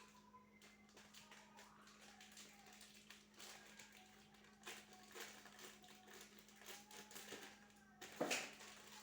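Faint scattered snips, clicks and rustles of scissors cutting open instant-noodle seasoning sachets, over a low steady hum, with one louder brief rustle about eight seconds in.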